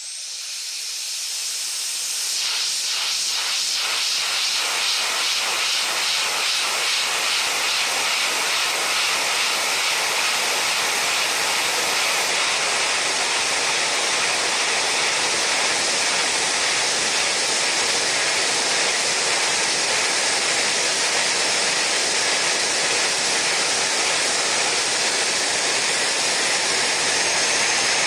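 Steady rushing hiss of the air jet that keeps the marbles floating. It builds over the first two seconds or so, then holds steady.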